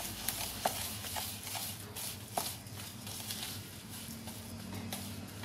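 Wooden spatula stirring and scraping a thick, damp crushed-chocolate-biscuit mixture in a plastic bowl, with irregular light taps and scrapes against the bowl.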